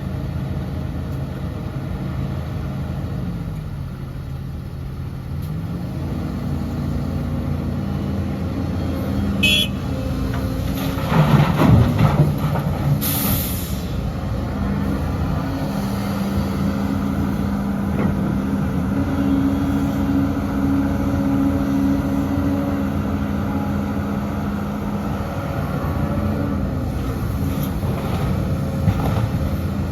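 Heavy diesel earthmoving machinery running steadily, its engine pitch dropping for a couple of seconds and then rising again. About ten seconds in there is a brief high squeal, then a louder rough clatter and a short high hiss.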